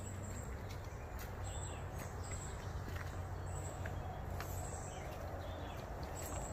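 Outdoor garden ambience: short high chirps of birds and insects come and go over a steady low hum, with soft footsteps and small clicks on a flagstone path.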